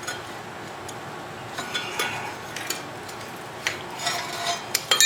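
Light metallic clicks and clinks as loose bolts and steel parts are handled while a lawn tractor is being taken apart. They come scattered and grow more frequent and louder toward the end, a few ringing briefly.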